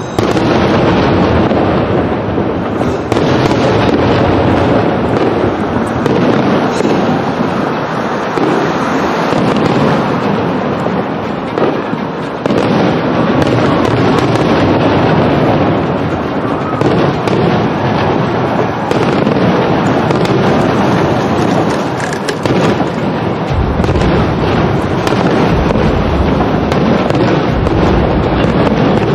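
Aerial fireworks display going off without pause: a dense barrage of shell bursts, bangs and crackle. Heavier, deeper booms join about three quarters of the way through as the bursts fill the sky.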